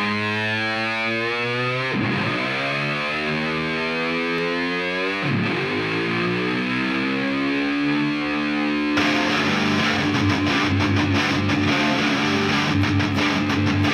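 Music: distorted electric guitar with sweeping pitch bends. About nine seconds in, drums and the full band come in, in a heavy rock style.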